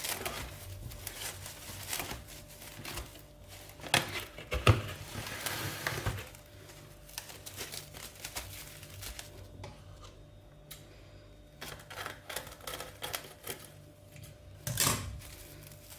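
Plastic cling film crinkling and crackling as it is pulled and wrapped tightly around a stack of baked mini pizza bases. It comes as irregular small crackles, with a few louder knocks in between.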